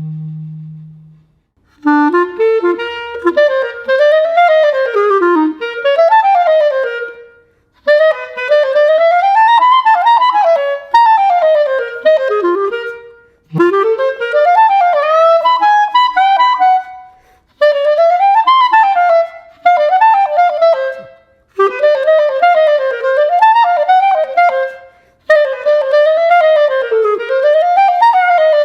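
Buffet Festival professional clarinet played solo in quick runs that sweep up and down, in phrases of a few seconds with short breath pauses between them.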